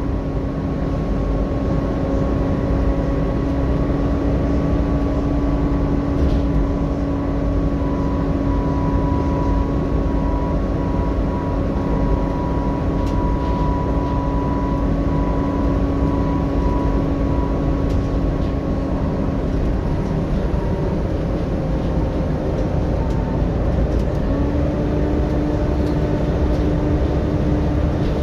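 Volvo B7TL double-decker bus under way, heard from inside the saloon. The rear-mounted diesel engine and road noise rumble under a steady whine from the engine's cooling fan, whose pitch rises slightly near the end.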